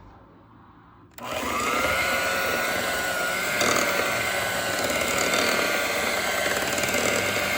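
Electric mixer switched on about a second in. Its motor whines briefly higher as it comes up to speed, then runs steadily while the beaters whip sweet potato pie filling.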